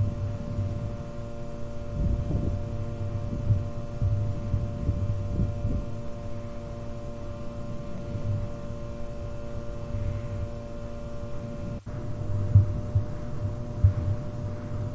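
Steady electrical hum of fluorescent ceiling lights, with irregular low thumps underneath. The sound cuts out for an instant just before twelve seconds in.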